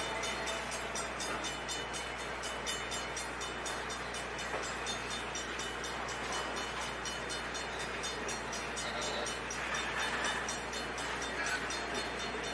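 Freight train of empty double-stack well cars rolling past: a steady noise of steel wheels on rail, with a fast, even clicking.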